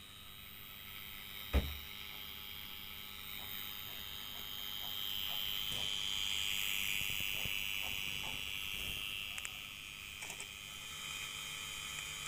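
Quiet background hiss with faint scattered ticks and one sharp click with a low thump about a second and a half in.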